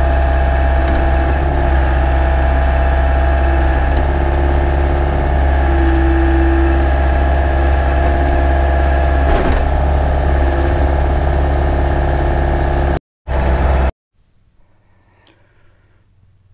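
Hyundai mini excavator's diesel engine running steadily while it digs. It cuts off suddenly about thirteen seconds in, leaving faint outdoor quiet.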